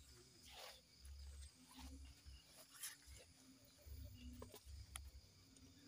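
Near silence: faint low rumble coming and going, with a few faint ticks.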